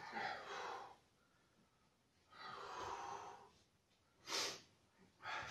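A man breathing hard to catch his breath after sets of parallel-bar dips: two longer breaths, one near the start and one about halfway, then two short sharp breaths near the end.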